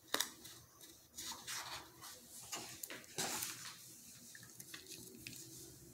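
Paper workbook pages being handled and turned, giving short rustles, with a sharp tap just after the start.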